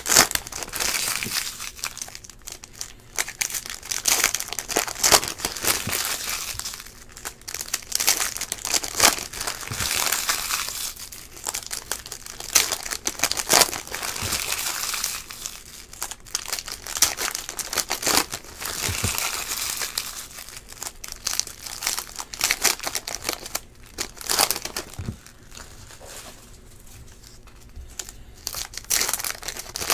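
Foil wrappers of Panini Prizm baseball card packs crinkling and tearing as the packs are ripped open by hand, in irregular bursts, quieter near the end.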